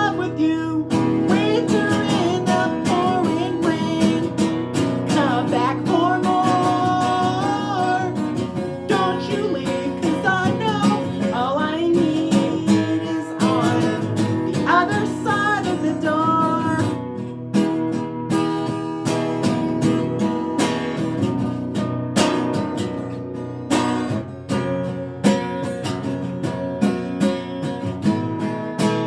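Acoustic guitar strumming a country-pop song, with a sung melody without clear words in the first half.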